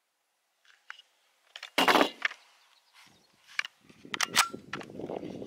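A single shot from a Ruger PC Carbine about two seconds in, followed by several sharp metallic clicks and handling noise as the magazine is released from the CZ 75 magwell adapter.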